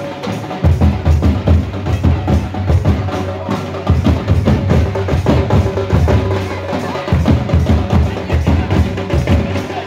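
Santali folk dance music driven by drums beating a busy, steady rhythm.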